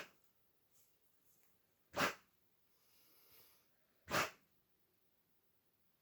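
Six-month-old cane corso cross puppy giving short, sharp coughs about two seconds apart, with a fainter breathy sound between two of them: the hacking cough of kennel cough.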